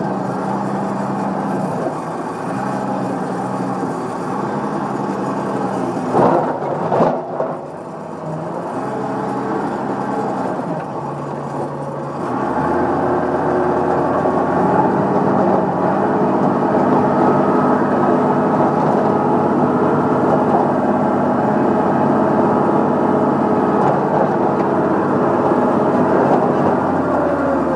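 Diesel engine of an old crawler track loader running steadily, heard from the operator's seat, with a couple of loud knocks about six and seven seconds in. From about twelve seconds on the engine runs louder and harder as the loader works its bucket into broken rock.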